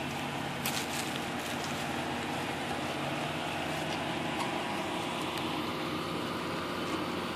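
Engine idling steadily: a low, even hum with a few light clicks about a second in.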